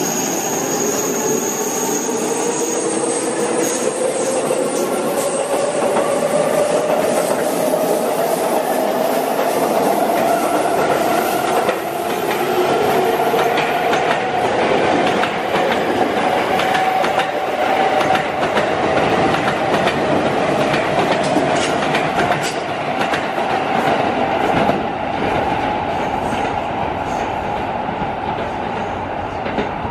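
Sotetsu electric train accelerating away, its motors giving a rising whine that climbs for about the first fifteen seconds and then holds steady. Wheels clatter over the rail joints through the middle.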